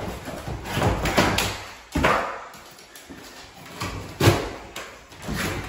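Cardboard packaging being pulled and handled around a prehung interior door: scraping and rustling of cardboard with knocks against the door and frame, the sharpest knock about four seconds in.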